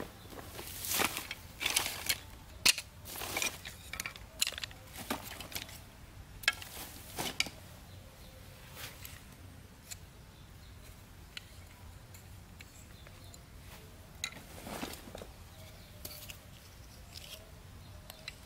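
Thin green bamboo being cut and split with a blade: a flurry of sharp cracks and knocks over the first several seconds, then scattered faint clicks and one more crackle near the end.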